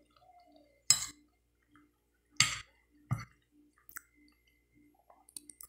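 Quiet chewing of soft food with three sharp mouth clicks, about a second in, then twice close together in the middle.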